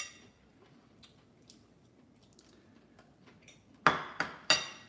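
Metal fork clinking against a ceramic pasta bowl: one ringing clink at the start, a few faint taps, then three louder ringing clinks in quick succession near the end.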